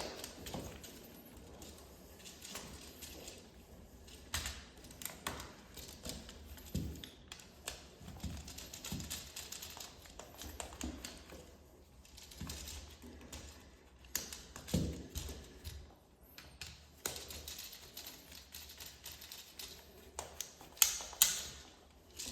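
Irregular small clicks, taps and scrapes of hand work on a double electrical socket: tools, plastic and wires being handled. A couple of sharper knocks come near the end.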